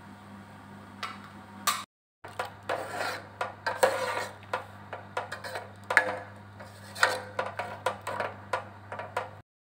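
Metal ladle stirring chunks of ginger and turmeric in a pot of boiling water, knocking and scraping against the metal pot in a run of quick clanks, over a steady low hum. The sound cuts out briefly twice.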